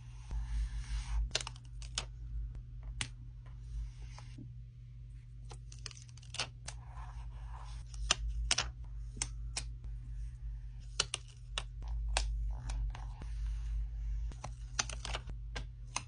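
Paper cutouts and paper butterflies being handled and pressed onto a journal page: irregular light taps and clicks of fingernails on paper, with soft paper rustling between them.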